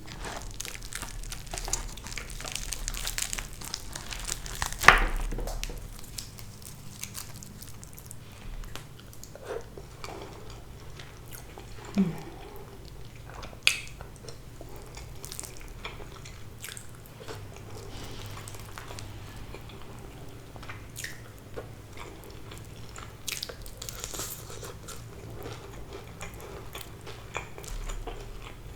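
Close-miked biting and chewing of crispy fried fish, with crunching, crackling and wet mouth sounds. A sharp snap about five seconds in is the loudest, and smaller snaps follow around twelve and fourteen seconds.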